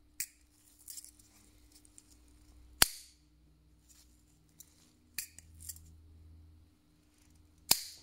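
A vintage German Okapi folding knife being opened and closed by hand, its ring-pull lock and backspring giving four sharp metallic clicks. The loudest clicks come about three seconds in and just before the end. The spring still snaps firmly after more than 40 years of use.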